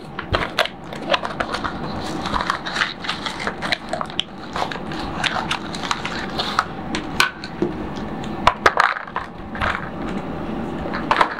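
Cardboard box and plastic packaging tray being handled, crackling and scraping with many sharp clicks, as a toy computer mouse is pulled out of its moulded tray.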